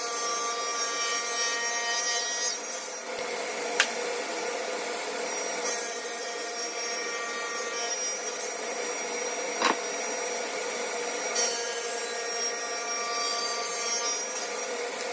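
Table saw running with a steady motor whine as its blade crosscuts dark hardwood strips pushed through on a sled. Two sharp clicks, about four and ten seconds in.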